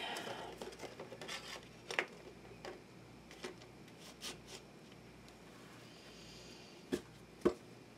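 Tarot cards being handled on a table: soft rubbing and light taps as a card is moved and the deck is picked up, with two sharper ticks near the end.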